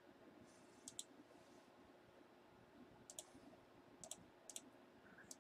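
Near silence broken by a few faint computer mouse clicks, some in quick pairs.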